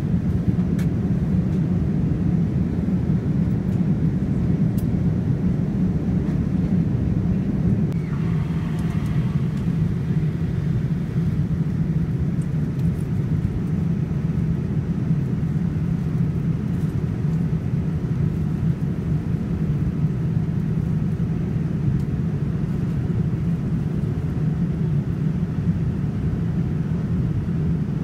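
Steady low roar inside a jet airliner's cabin in cruise flight: the engines and the rush of air along the fuselage, heard from a window seat.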